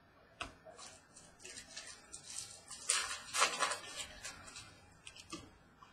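Trading cards being handled and flipped through. A sharp tap comes about half a second in, then irregular papery sliding and rustling, loudest around the middle, and a few light taps near the end.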